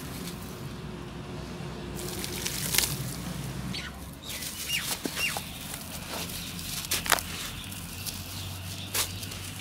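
Hands crushing and crumbling dried clumps of brown dirt, with a few sharp crunches as the lumps break and dry grit pattering down into the loose soil.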